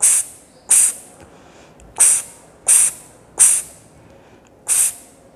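A woman voicing the phonics sound of the letter X, a short hissing 'ks', six times in an uneven rhythm, with longer pauses about a second in and near the end.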